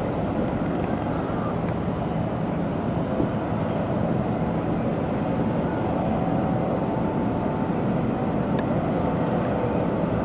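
Steady drone of distant aircraft engines, with a few faint steady tones under an even rushing noise.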